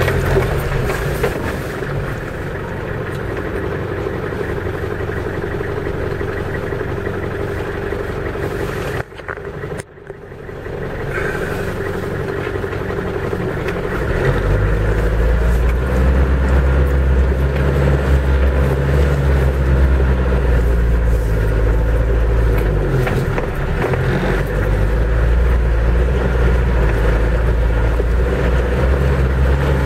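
4x4 truck's engine and drivetrain heard from inside the cab while driving slowly along a muddy trail. The sound dips briefly about nine seconds in, then from about fourteen seconds in the engine note grows louder and deeper as it works harder.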